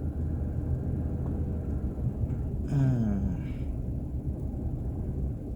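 Steady low rumble of a car's tyres and engine, heard from inside the cabin while driving on a snow-covered road. A short vocal sound breaks in about three seconds in.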